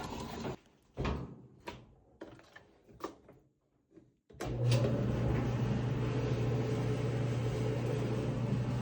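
Several separate knocks and clicks, like a door or panel being shut, then a machine starts abruptly about four seconds in and runs with a steady low hum.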